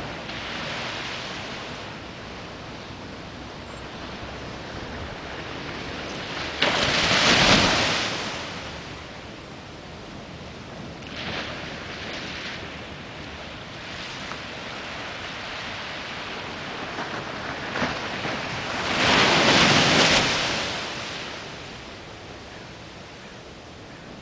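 Ocean surf: a steady wash of small waves, with two louder waves breaking, one about seven seconds in and one about nineteen seconds in, each swelling up and dying away over a couple of seconds.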